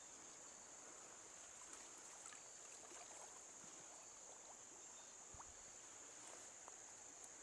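Near silence: a faint, steady high-pitched insect chorus over faint running stream water, with a few soft scattered clicks.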